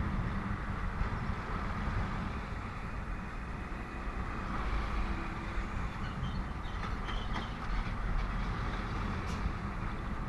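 Steady rumble of a motorcycle ride in highway traffic: engine and road noise, with a few faint clicks past the middle.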